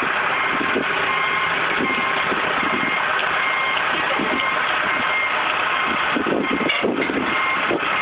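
Backhoe's diesel engine running as it is driven backward off a gooseneck trailer, with its reversing alarm beeping at a steady high pitch over the engine.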